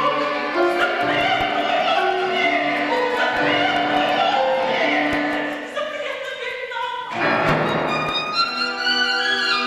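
Mezzo-soprano singing with vibrato over a chamber string orchestra in a classical cantata. About seven seconds in a sudden rough accent breaks in, and the solo violin follows with held notes.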